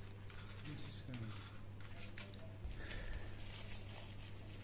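Faint clicks and rustles of small plastic parts being handled, from the Boya BY-M1 lavalier microphone and its battery holder, over a steady low electrical hum.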